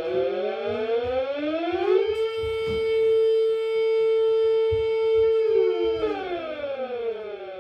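A siren wail that rises in pitch for about two seconds, holds one steady note for about four seconds, then winds down as it falls away.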